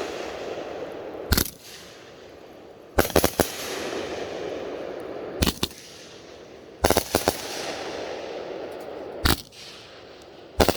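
A 25-shot 500-gram consumer fireworks cake firing: loud sharp bangs of shells breaking overhead every couple of seconds, some in quick pairs or threes, with crackling stars hissing between them.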